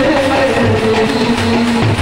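Indian brass band playing a melody with a wavering, vibrato pitch, a bass drum thudding under it and a snare drum keeping the beat.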